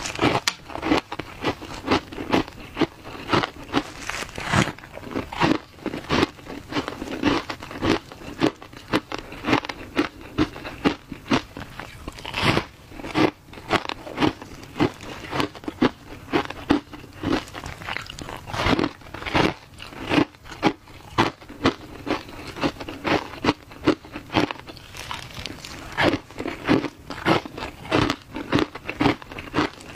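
Ice being bitten and chewed close to the microphone: a steady run of loud, sharp crunches, two or three a second.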